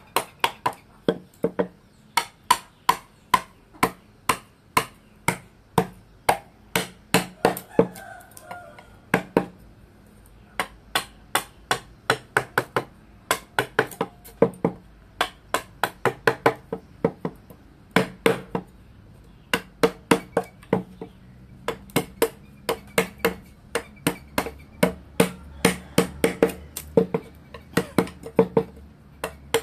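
Wooden mallet striking a carving chisel as it cuts into a wooden panel: a run of sharp knocks, about two to three a second, with a few short pauses.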